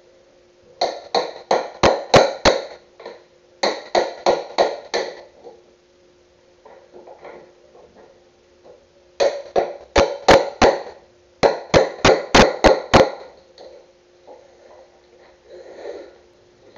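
Hammer striking a chisel to cut into a wooden board: four bursts of five to seven quick blows, about three a second, each with a short metallic ring.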